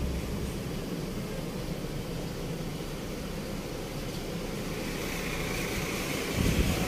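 A steady low mechanical rumble, with a brief low thump near the end.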